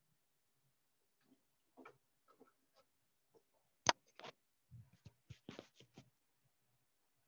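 Faint, irregular clicks and small knocks. A single sharp click about four seconds in is the loudest, followed by a quick cluster of clicks near the end.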